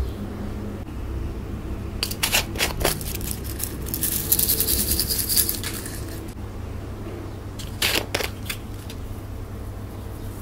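Small plastic cup sequins dropped and scattered onto a table strewn with makeup powder: light separate clicks, a spell of dense pattering about four seconds in, and a few more clicks near eight seconds. A steady low hum runs underneath.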